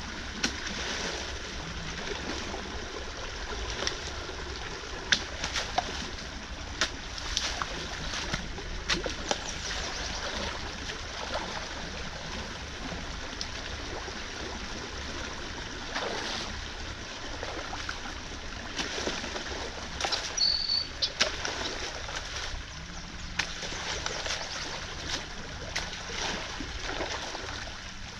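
Creek water rushing and splashing through a freshly breached beaver dam as the held-back water drains downstream, with scattered clicks and knocks throughout.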